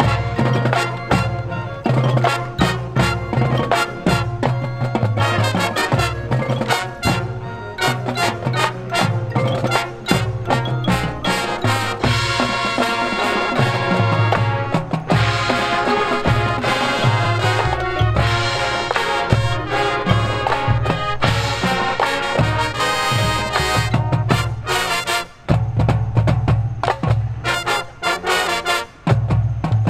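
High school marching band playing its field show: brass over drumline and front-ensemble percussion, with two brief breaks in the sound near the end.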